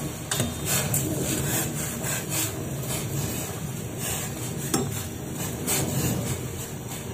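Perforated metal skimmer stirring instant noodles in a stainless pot of boiling water, scraping and knocking against the pot several times, with one sharper clank about two-thirds of the way through. Under it runs the steady low rumble of the rolling boil.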